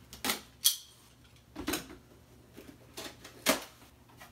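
Box cutter blade working at the tape and flaps of a small cardboard shipping box, with the box handled: a few sharp scrapes and clicks, the loudest about three and a half seconds in. The box is resisting being opened.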